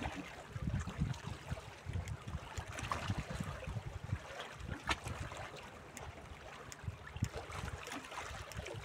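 Small sea waves lapping and splashing against shoreline rocks, with wind buffeting the microphone in uneven gusts of low rumble. A single sharp click about five seconds in.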